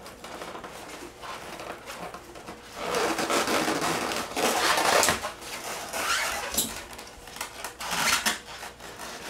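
Packaging being rummaged through and parts pulled out of a box: rustling with scattered knocks and clicks, busiest in the middle and again near the end.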